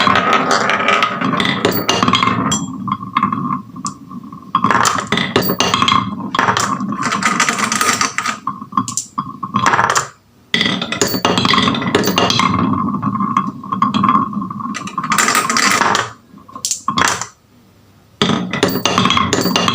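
Marbles rolling and clattering down wooden HABA marble-run slopes, a busy run of clicks and rattles that breaks off briefly twice.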